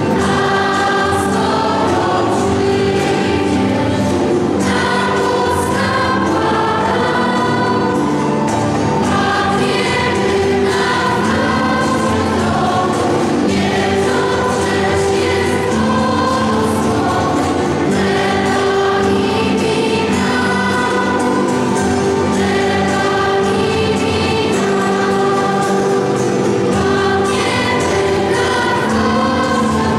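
Parish schola choir singing a Polish Christmas carol, many voices holding sustained notes together.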